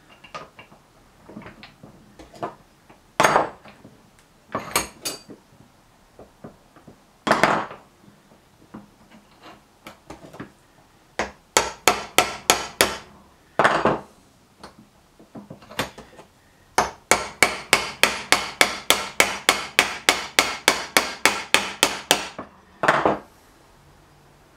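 Hammer tapping a bearing sleeve down onto a Look Keo 2 Max pedal spindle: scattered single knocks, then a short run of blows, then a long, even run of quick taps, about five a second, and one last knock near the end.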